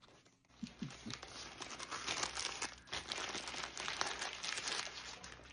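Paper burger wrapper crinkling and rustling as it is handled and folded back, starting about half a second in.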